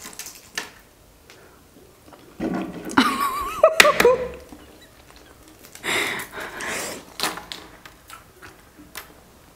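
Hard-boiled eggshells being cracked and peeled by hand: small crackling clicks of shell breaking away. A short burst of laughing comes about three to four seconds in.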